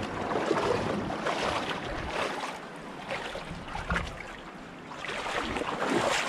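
Shoes sloshing and splashing in shallow seawater as they are washed off, an irregular splashing that comes and goes.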